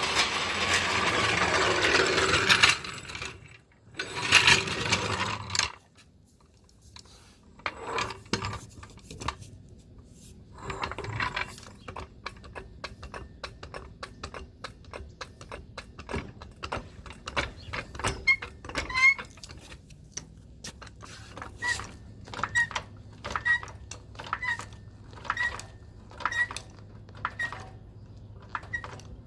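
A jack being set under the truck and worked to lift it: scraping and rolling at first, then scattered metal clicks and, in the second half, a short squeak repeating about once a second.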